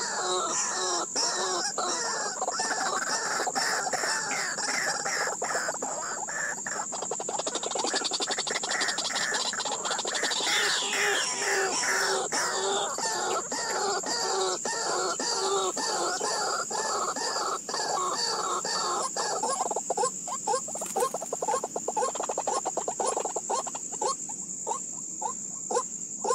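White-breasted waterhens calling: fast, rhythmic, repeated call notes from several birds overlapping, thinning out about three-quarters of the way through. A steady high-pitched whine runs underneath.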